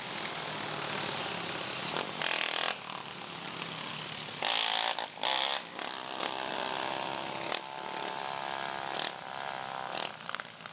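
Several racing ATV engines revving at high speed, their pitch rising and falling. Three brief loud rushes of noise come about two, four and a half and five and a half seconds in.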